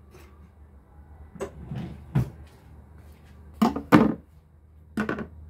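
Kitchen cabinet and utensil knocks and clatter: a few short, sharp knocks, the loudest a double clatter about four seconds in, with one more near the end.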